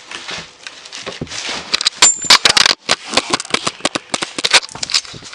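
Close handling noise: crackling rustles, scrapes and quick clicks and knocks in a dense irregular run, loudest around the middle.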